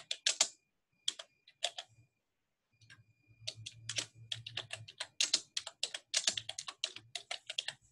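Typing on a computer keyboard: a few keystrokes, a short pause, then a quick run of keystrokes as a shell command is entered.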